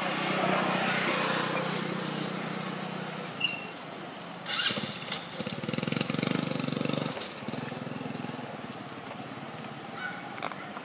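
An engine running, a steady low hum that fades over the first few seconds, then a pulsing stretch about halfway through, with a few sharp clicks.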